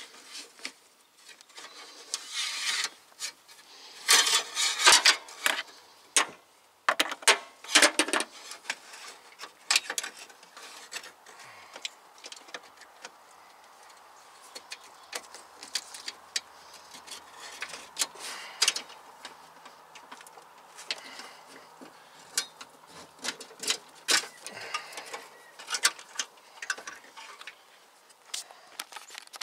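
New metal brake line being fed down through a crowded engine bay, clicking, tapping and scraping against engine parts and hoses as it is pushed and worked into place. Several louder scraping rushes come in the first eight seconds or so, then scattered lighter clicks.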